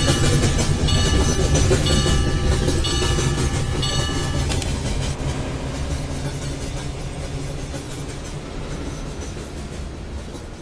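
Train passing a level crossing: a heavy rumble of the wheels that slowly fades as the train moves away. A high ringing repeats about once a second and stops about halfway through.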